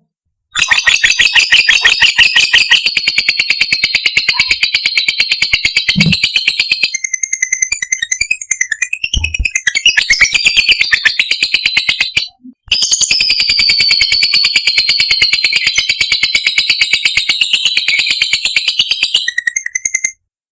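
Lovebird 'ngekek': a long, very fast, even run of high, shrill chirps, breaking off briefly about twelve seconds in and then resuming.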